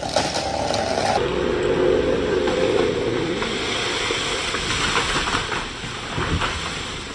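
Chainsaw running at high revs, then working through a cut with its pitch sagging slowly under load as it bites into the wood.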